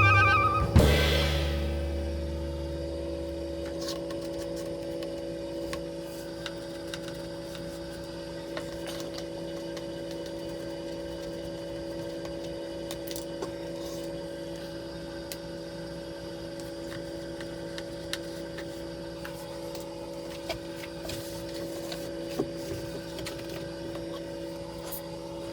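A steady mechanical hum with a few faint ticks, after the tail of a music hit fades out at the start.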